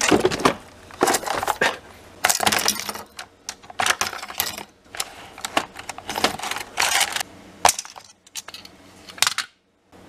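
Handfuls of desktop RAM modules clattering and rattling against each other and a plastic parts bin as they are grabbed out, in irregular bursts of clicks and scrapes.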